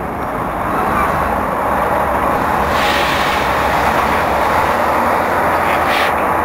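Railway crane car and wagons rolling slowly past on the track: a steady rumble and clatter of the train, with a brief louder, sharper noise about halfway through and another near the end.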